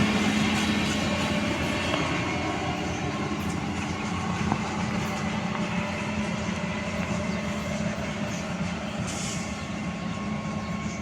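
Freight train rolling past on the rails, a steady rumble that slowly gets quieter.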